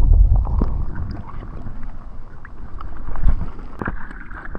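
Wind buffeting the action camera's microphone: a low gusting rumble that eases off in the middle and swells again, with a few light clicks over it.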